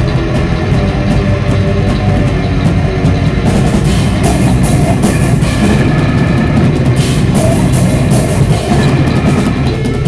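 Heavy metal band playing live: distorted electric guitars over a drum kit, the drums loud and close. From about three and a half seconds in, the cymbals are struck more often.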